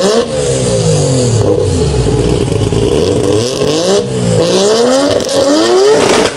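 Mazda RX-7's rotary engine revved repeatedly at a standstill, its pitch climbing and falling several times.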